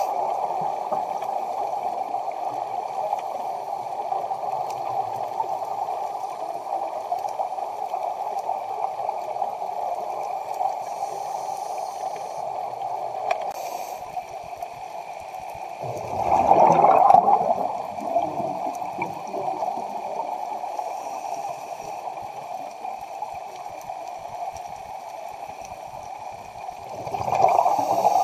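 Underwater scuba-dive sound through a camera housing: steady rushing water noise, swelling twice into louder bubbling from a diver's exhaled air, about sixteen seconds in and again near the end.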